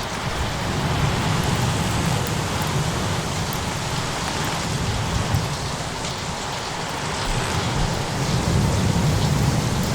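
Thunderstorm ambience: a steady rush of rain with low rolling thunder rumbling beneath it, swelling and easing, and a few faint crackles of a fireplace.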